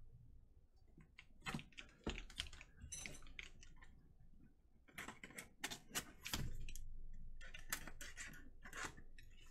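A cardboard case and its plastic wrap being handled and turned: a run of light clicks, crackles and rustles, denser about six to eight seconds in.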